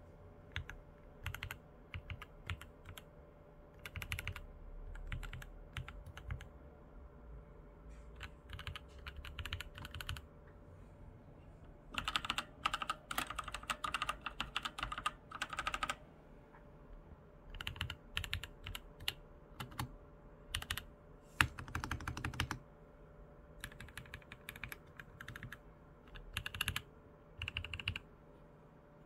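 Bursts of typing on an Epomaker EK68 mechanical keyboard fitted with Gateron Pro 2.0 Yellow linear switches, runs of quick key clicks with short pauses between them. In the middle, the typing moves to a Thunderobot KG3104R keyboard with red switches, whose runs are denser and louder.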